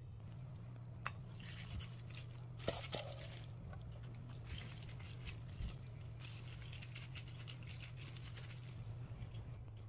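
Soft wet squelching and rustling of sauce-coated noodles being handled by a hand in a plastic glove, with the glove crinkling. A sharp tap about a second in and another near the three-second mark, over a faint steady low hum.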